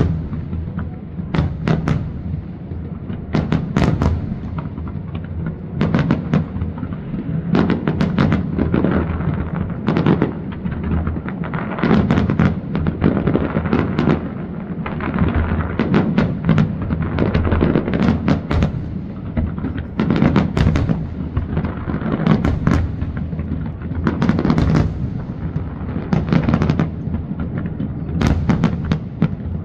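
Aerial firework shells bursting in a continuous barrage: many sharp bangs, several every couple of seconds and often overlapping, over a steady low rumble.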